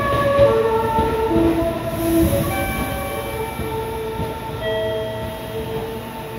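Meitetsu train's musical horn playing its melody, a run of short notes changing pitch, over the rumble of the train. The tune and rumble grow fainter toward the end.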